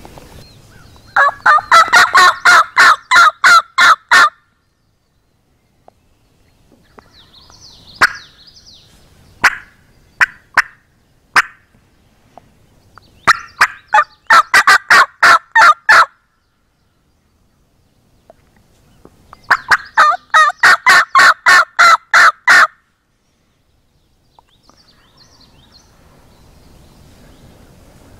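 Turkey yelping in three loud runs of evenly spaced notes, about four or five a second, each run lasting some three seconds. A few fainter calls come between the first and second runs.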